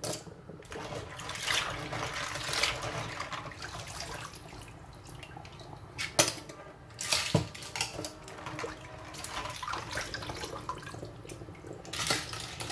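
Raw clams being scrubbed by hand in a bowl of water in a stainless steel sink: water sloshing and splashing as the shells rub and knock together, with a few sharp clacks about six and seven seconds in.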